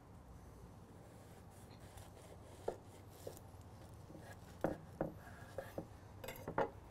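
Knife cutting down through a toasted telera roll and a stuffed burger patty onto a wooden cutting board: a few soft crunches and taps, most of them in the second half.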